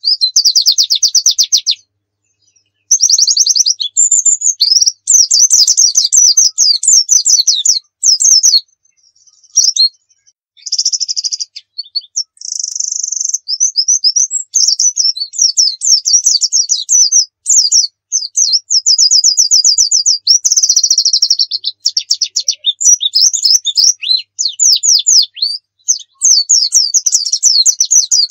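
White-eye (pleci dakun) in full song: long, rapid high-pitched trills of fast repeated notes mixed with varied twittering phrases, broken only by a few brief pauses.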